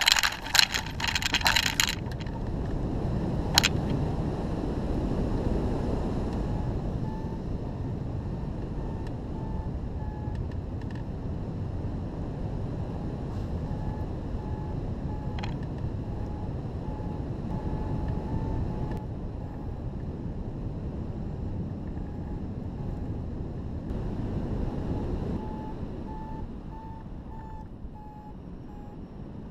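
Steady wind rushing over the glider-mounted camera's microphone during a hang glider flight, after a loud burst of rustling and clatter in the first two seconds. From about seven seconds in, a hang gliding variometer beeps in a quick string of short tones that waver slightly in pitch, the vario's signal of climbing in lift.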